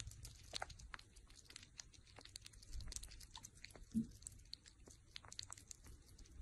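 Sugar gliders licking and lapping at food in a small plastic cup: faint, irregular wet clicks of tongues and mouths, with one brief low sound about four seconds in.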